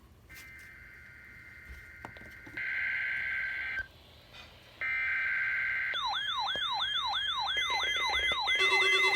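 NOAA Weather Radio SAME data header, bursts of a harsh two-tone data warble, followed at about six seconds by the receivers' electronic alert alarm: a yelping siren tone sweeping up and down about three times a second, with extra beeping tones joining near the end.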